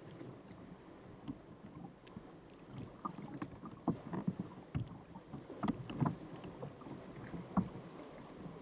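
Sea water lapping and splashing against a sea kayak as it is paddled: many small irregular splashes and drips over a low wash, busier from about three seconds in.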